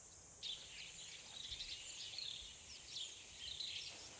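Small birds chirping and twittering in quick, varied notes, starting suddenly about half a second in, over a steady high drone of crickets.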